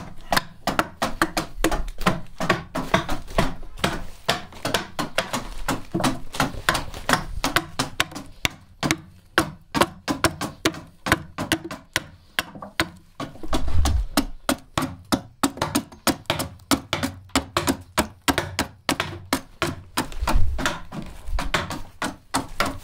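Hand adze (keser) chopping into the mulberry-wood bowl of a bağlama as it is hollowed out, rapid steady strokes several a second, with a couple of heavier thuds partway through.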